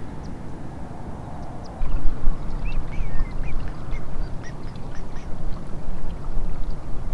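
Low rumble of wind and water noise on the microphone of a moving kayak, jumping louder about two seconds in, with a string of short bird calls over it.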